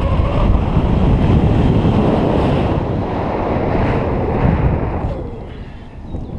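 Airflow rushing and buffeting over the microphone of a harness-mounted camera on a flying paraglider, easing briefly near the end.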